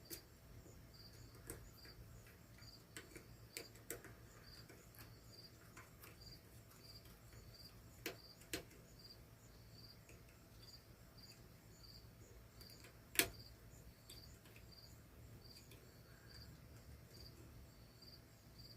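A cricket chirping at an even pace in the background, with scattered faint clicks and taps of small set screws and a tiny screwdriver being handled; one sharper click about 13 seconds in.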